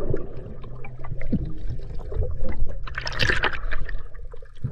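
Muffled underwater sound heard through a submerged action camera: water moving and gurgling, with scattered small clicks, a steady low rumble and a louder gurgling burst a little past three seconds in.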